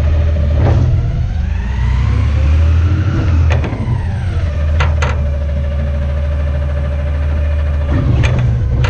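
Garbage truck's engine running under hydraulic load. A whine rises and falls as the engine revs up and drops back, then holds steady. Several sharp metal clanks come from the packing mechanism and hopper.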